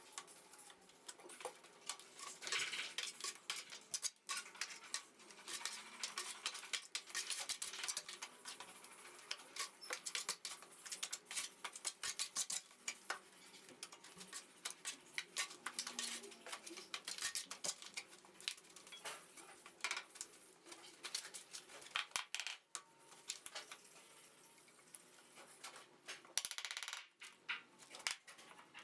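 Irregular light metallic clinks, taps and short scrapes of plastering hand tools and fittings being handled and worked on a wall.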